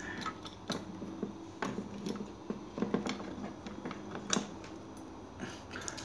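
Light handling noise from a small folding knife and a metal bench vise on a wooden desk: a few scattered clicks and taps at irregular intervals.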